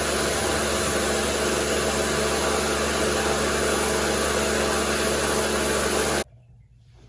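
Kärcher electric pressure washer running steadily, its motor and pump humming under the hiss of the spray, then stopping suddenly about six seconds in.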